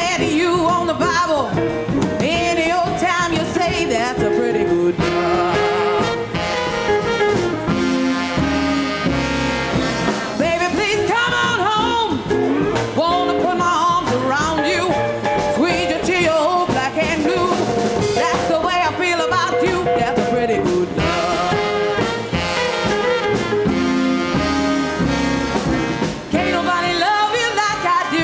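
Live rhythm-and-blues band with drums, bass, guitar and horns playing a steady shuffle, with a lead line on top that fits singing.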